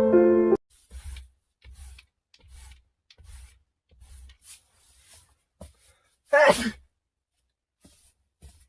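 A person sneezes once, sharply, about six seconds in, after a stretch of faint soft sounds. A few piano notes end just after the start.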